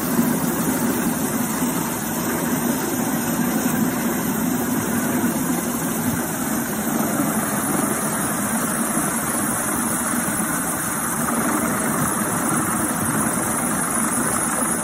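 Coast Guard MH-65 Dolphin helicopter hovering close overhead: a steady, loud rotor and turbine noise.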